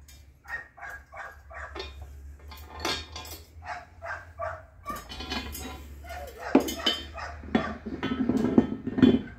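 Steel jack stand's locking pin and chain clinking and clanking as they are handled, with the sharpest metal knocks in the second half. Before that, a run of short pitched calls, several a second.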